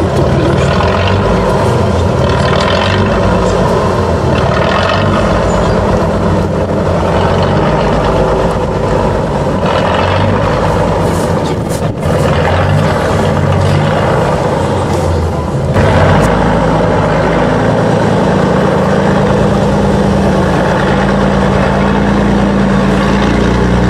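Tatra 813 8x8 truck's diesel engine working under load as it climbs over rough mud ground, the revs rising and falling, with a short dip about halfway and a surge a few seconds later before settling to a steadier note.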